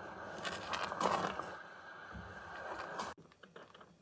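Silicone spatula stirring and scraping thick béchamel sauce around a stainless steel saucepan, a few scraping strokes over a steady hiss. The sound cuts off abruptly a little after three seconds in.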